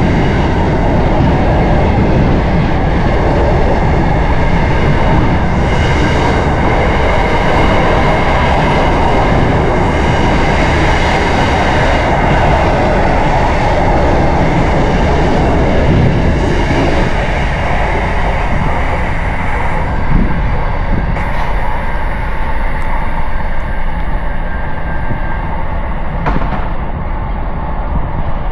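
A train passing close by: a loud, steady rumble of wheels on the rails that thins out and eases somewhat in the last third.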